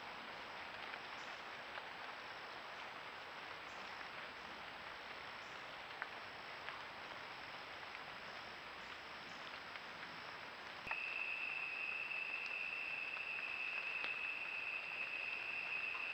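Night-time insects making a steady hiss, with a few faint ticks. About two-thirds of the way in, a steady high-pitched trill, typical of a tree cricket or katydid close by, comes in and becomes the loudest sound.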